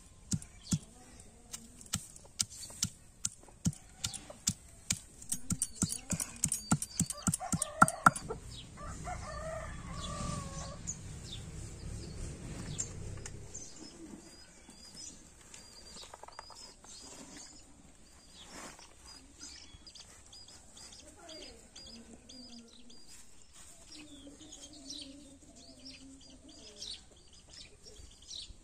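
Stone pestle pounding garlic cloves on a grooved stone grinding slab (shil-nora), a quick series of sharp knocks that speeds up and stops about eight seconds in. After that, chickens and small birds call faintly.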